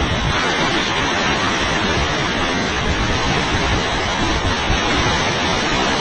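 Waterfall's steady roar of heavily falling water, with wind gusting on the microphone and shaking the low end.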